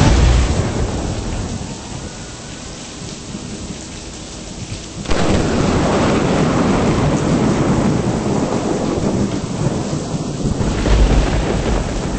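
Thunderstorm: heavy rain with rumbling thunder. The rain suddenly grows louder about five seconds in, and a deep rumble of thunder comes near the end.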